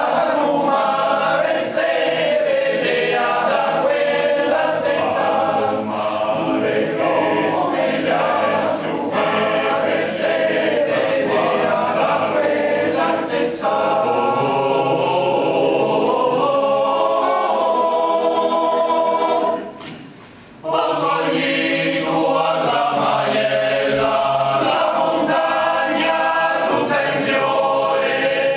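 Male voice choir singing unaccompanied, with one short break of about a second roughly twenty seconds in before the voices resume.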